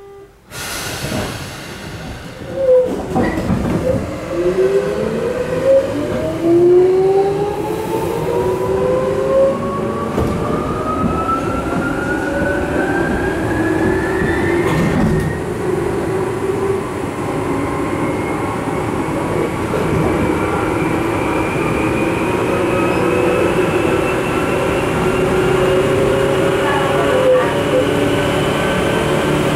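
Tokyu 8500 series electric commuter train heard from inside the car as it pulls away and accelerates. Its traction motors and gearing whine, rising steadily in pitch, over a rumbling running noise with occasional knocks of the wheels over rail joints.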